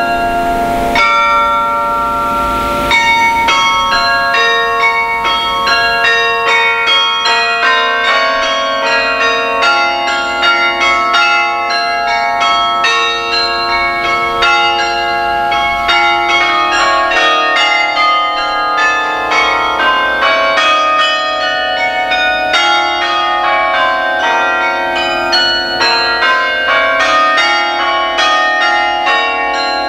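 Carillon bells playing a carol tune: many tuned bronze bells struck in quick succession from the baton keyboard, each note ringing on under the next, with lower bells sounding beneath a fast upper melody. The notes come thick and fast from about three seconds in.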